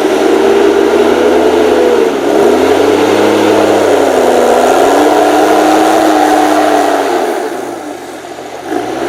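The 6.7-litre, 238 hp diesel engine of an HSM 904 S forestry machine running hard. Its pitch sags about two seconds in and holds lower. Near the end it drops away and quietens, then revs back up.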